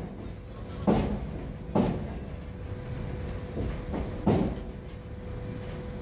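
Passenger train wheels clacking over rail joints and points as the train arrives: single heavy knocks about a second apart, four in all, the last a little before halfway through. A faint steady whine runs under the rumble.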